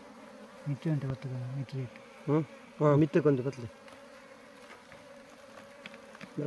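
Honeybee colony humming steadily at a hive entrance as the bees crawl in, with several loud buzzes from bees flying close by that rise and fall in pitch in the first half.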